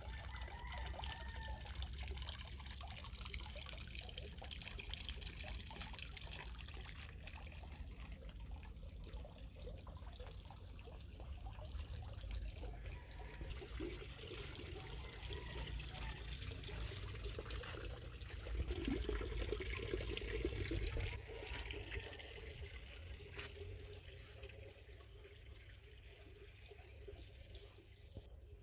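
Water trickling steadily over a low rumble that grows louder for about two seconds around two-thirds of the way through.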